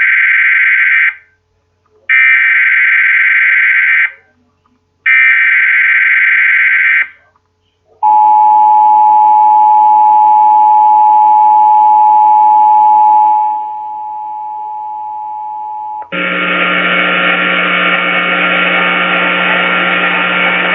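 Emergency Alert System header: three bursts of screechy digital data tones, each about two seconds long and a second apart, followed by the steady two-tone EAS attention signal held for about eight seconds, dropping in level partway through. It marks the start of an alert, here a test tornado warning. About sixteen seconds in, a different, buzzier steady tone takes over.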